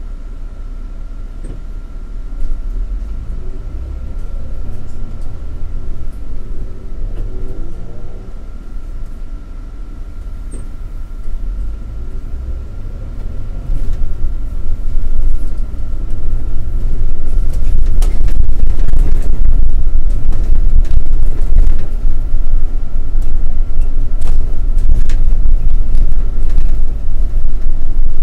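City bus driving, heard from the front of the cabin: a low engine and road rumble with a faint steady whine. The rumble grows much louder about halfway through as the bus picks up speed, with short knocks and rattles in the second half.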